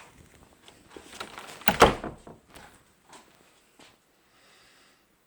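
A door shutting with one loud thump about two seconds in, followed by a few lighter clicks and knocks.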